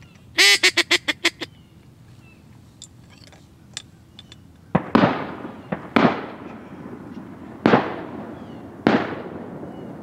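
A loud, quick descending run of about six mallard-style duck quacks, then from about halfway through about five 12-gauge shotgun shots from waterfowl hunters, each echoing away.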